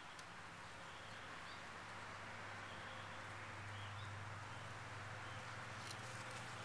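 Faint outdoor ambience: a steady low hum under a soft hiss, with a few faint high chirps and some light clicks near the end.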